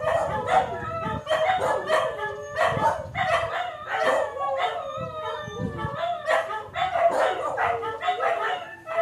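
Several dogs howling together, with some barks, in a chorus of overlapping howls that does not let up.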